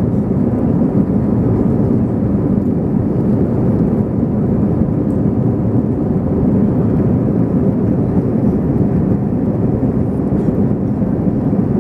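Airbus A321ceo cabin noise during the climb after takeoff: a steady, low rush of jet engines and airflow heard inside the cabin.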